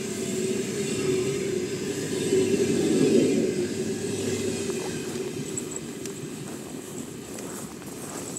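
Passenger train coaches rolling past on the rails, their wheels rumbling. The sound is loudest about three seconds in as the tail of the train goes by, then slowly fades as the train moves away.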